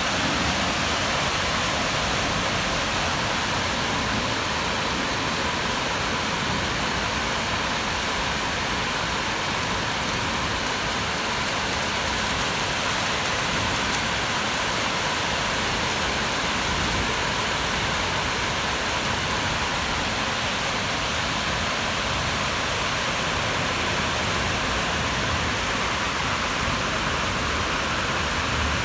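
Steady, even rainfall hissing through a thunderstorm, with no thunderclaps.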